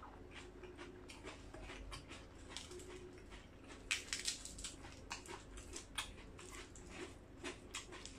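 Close-up eating sounds: chewing and lip smacking, with a run of crisp crackles about four seconds in as a fresh lettuce leaf is torn by hand. A faint steady hum sits underneath.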